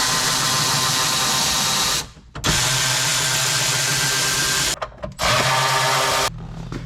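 Power drill-driver spinning out the dashboard's small screws and bolts: a steady whir in three runs of a few seconds each, stopping briefly between them.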